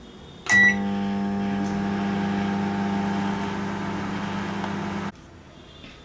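Black Beauty microwave oven running on high power: a click and a short beep as it starts about half a second in, then a steady electrical hum that cuts off suddenly about five seconds in.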